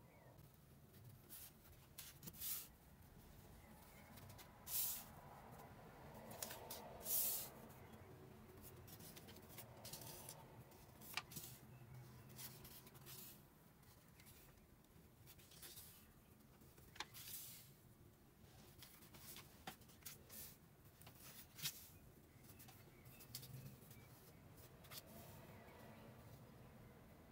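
Faint rustles of paper cards being slid and laid down, with a few short swishes and, later, several sharp little taps.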